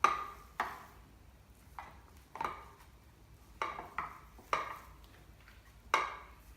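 Raw ground-meat mixture being dropped and pressed by hand into a metal cake pan: about seven separate slaps and knocks at irregular intervals, each dying away quickly.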